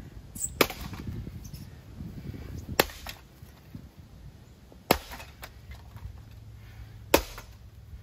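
Four sledgehammer blows on a Harbor Breeze low-profile ceiling fan lying on grass, each a single sharp impact, a little over two seconds apart.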